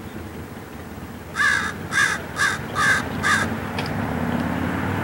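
Common raven giving five harsh caws in quick succession, about two a second, starting a little over a second in.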